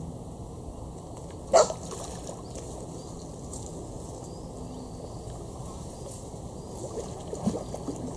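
Splashing in shallow lake water as a hooked carp is played to the bank and a landing net is dipped in, the splashes clustering near the end. One short, sharp, loud sound about a second and a half in stands above the rest.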